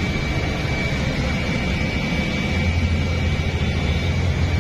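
Diesel engine of a FAW heavy truck running, its low rumble growing louder a little past halfway through.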